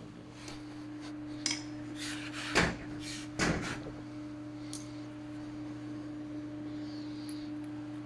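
A few short scrapes and clicks of hand tools and parts being handled at an electric scooter's rear wheel, the loudest about two and a half and three and a half seconds in, over a steady low hum.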